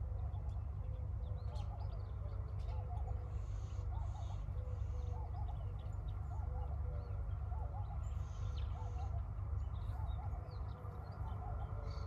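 Short animal calls repeating about once a second over a steady low rumble, with faint scattered clicks.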